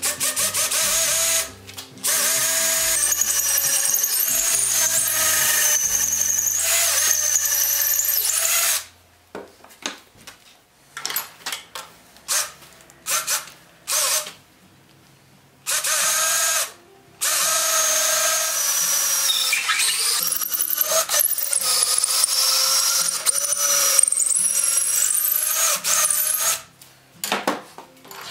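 Cordless drill running in long bursts of several seconds with short pauses between, its whine dipping in pitch under load as a long bit bores down through the iron shoe into the wooden sled runner.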